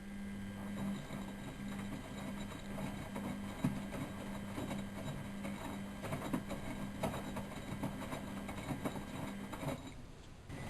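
Miele Novotronic W914 washing machine running during a boil wash: a steady low hum that pulses with short breaks, over light clicking and rattling from inside the machine. The hum fades away shortly before the end.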